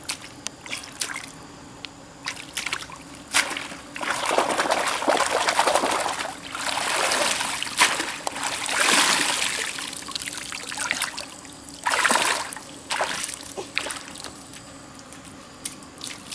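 Water trickling and splashing as a woven bamboo basket is dipped and worked in shallow muddy water, in several long surges, with splashing steps through the shallows in between.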